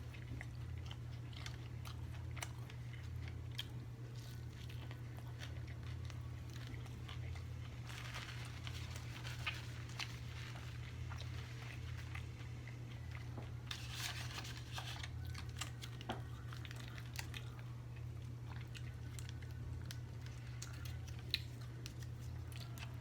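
A person biting and chewing food close to the microphone, with wet mouth clicks and two louder crunchy stretches, about a third and about two thirds of the way through. A steady low hum runs underneath.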